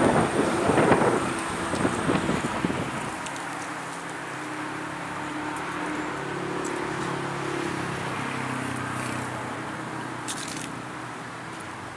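Wind buffeting the microphone, easing after about three seconds into steady road traffic noise with a low engine hum.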